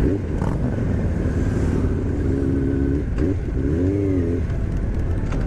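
Yamaha YZF-R6S inline-four sport bike engine with a Two Brothers full exhaust running under way, heard over a steady low rumble. Its pitch rises and falls with the throttle about four seconds in.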